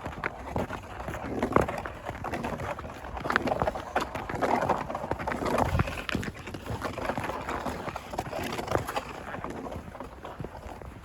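Footsteps crunching through fresh snow in an irregular walking rhythm.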